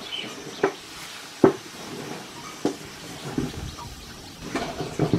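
Scattered sharp knocks and clicks of vegetables being cut and handled, at irregular intervals, the loudest about one and a half seconds in.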